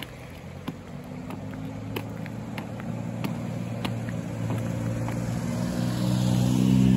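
A car engine running, its low hum and tyre hiss growing louder as the car comes closer toward the end. Footsteps on pavement tap along at about three steps every two seconds.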